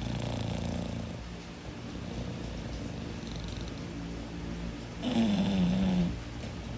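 English bulldog snoring in its sleep: a low snore trails off in the first second, soft rumbling breaths follow, then a louder snore about five seconds in, lasting about a second with a slightly falling pitch.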